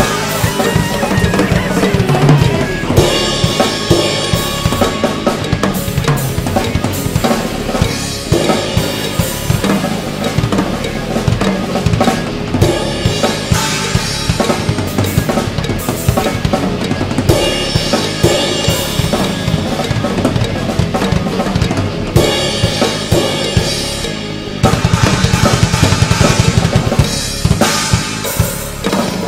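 Instrumental music driven by a drum kit, with a steady bass drum and snare beat and busy fills, and no vocals. The passage gets louder and heavier near the end.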